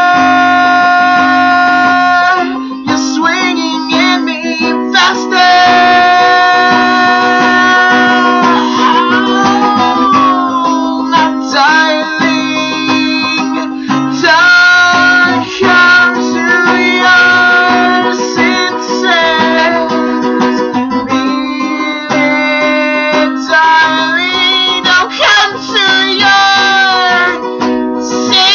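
Acoustic guitar strummed steadily while a man sings long, held notes over it, some sliding in pitch.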